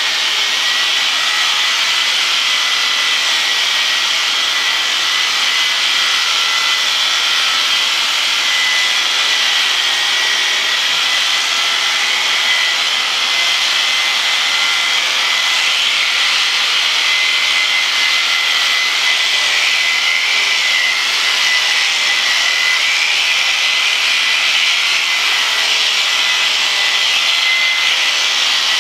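Electric sheep shears running with a steady high whine as they cut through a ram's fleece.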